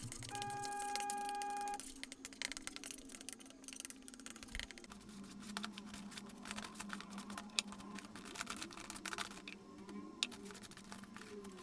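Glue brush scraping and tapping as it spreads glue over a wood veneer sheet and dips into the glue can: a run of faint, irregular scratchy clicks. A steady pitched tone sounds for about a second and a half near the start.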